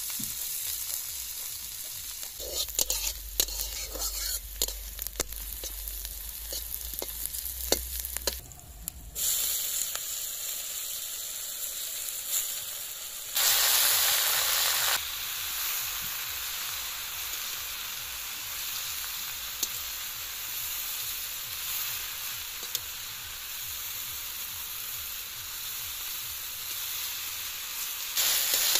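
Food frying in a hot iron kadhai: steady sizzling, with the clatter and scrape of a metal spatula stirring, busiest in the first eight seconds. About halfway through the sizzling turns louder for a couple of seconds, and chopped water spinach (kalmi shak) is stir-fried in the sizzling oil.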